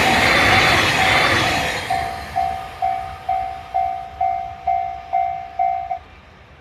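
A train passes a Japanese railway level crossing, its rumble fading over the first two seconds, while the crossing bell rings "kan-kan" about twice a second. The bell stops abruptly about six seconds in, after the train has gone by.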